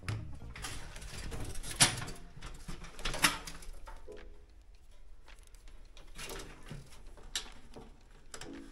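Electrical wires and modular rail connectors being handled while a distribution board is wired: rustling and scraping, with two sharp clicks about two and three seconds in.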